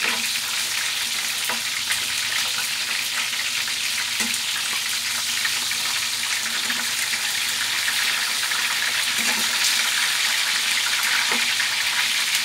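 Chicken drumsticks frying in hot oil in a pan, a steady sizzle, with a few short taps and scrapes of a spatula against the pan as the pieces are pushed and turned.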